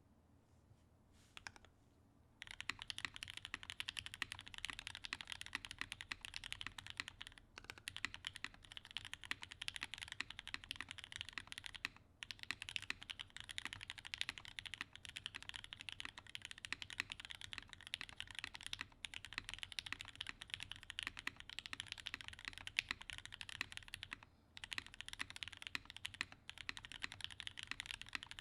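Fast, continuous typing on a Monokei KFE CE mechanical keyboard with lubed, filmed Gateron Hippo switches on an aluminium plate, foam-dampened, with CRP Tulip R3 keycaps. The typing starts about two seconds in and stops briefly a few times.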